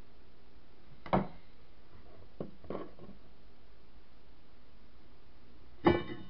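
A metal tool knocking about a smouldering matchbook stack: a sharp knock about a second in, two fainter clicks, then a sharp metallic clink with a short ring near the end, over steady background hiss.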